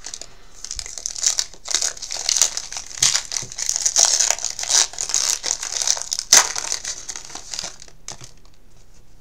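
Foil wrapper of a 2011 Panini Elite trading-card pack crinkling as it is handled and opened, with one sharp crackle about six seconds in.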